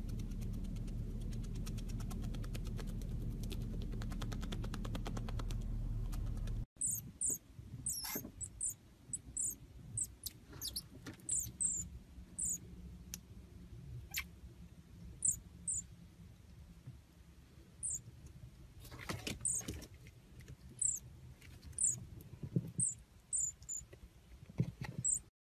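A marmoset giving a long run of short, very high-pitched chirps, irregularly spaced, with a few soft knocks and rustles among them. Before the chirping begins, about seven seconds in, there is a steady low hum.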